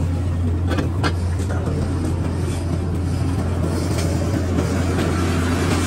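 Workshop machine running with a steady low hum, with a few short metallic clinks as steel leaf-spring leaves are handled.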